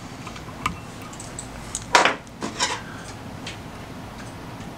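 Light handling sounds of fly tying: a few soft ticks, then short scraping noises about two seconds in, the first the loudest, as lead wire wrapped on a jig hook is cut off and worked into place.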